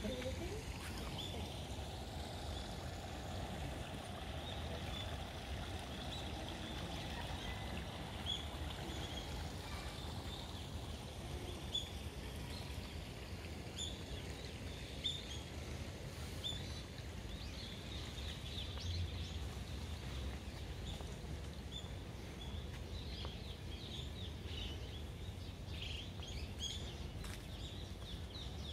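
Outdoor ambience of a steady low rumble and hiss, with small birds giving short high chirps now and then.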